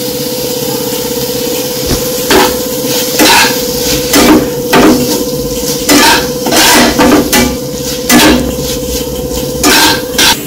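A flat metal spatula scraping and knocking against a nonstick kadhai as a stir-fried kurdai noodle mixture is tossed. There are about a dozen short scrapes and taps at uneven intervals, starting about two seconds in, over a steady hum.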